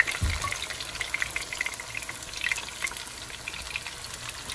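Chopped onions, sweet peppers, tomato and scallion sizzling and crackling in hot oil in a frying pan, with one low thump just after the start.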